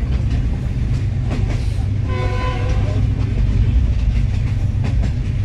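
Passenger train running, heard from inside a carriage: a steady low rumble with a few sharp clacks from the rails, and a horn sounding once for about a second, about two seconds in.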